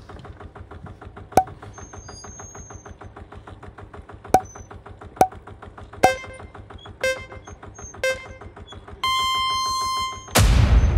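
Quiz-style countdown sound bed: a rapid, even electronic ticking with a few sharp pops and short bright chime notes. A held synthesizer tone sounds about nine seconds in, and a loud hit comes just before the end.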